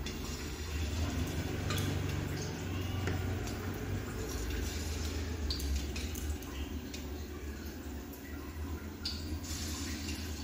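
Bottle-gourd kofta batter frying in hot oil in a kadhai: soft sizzling with scattered small pops and clinks as more batter is dropped in, over a steady low hum.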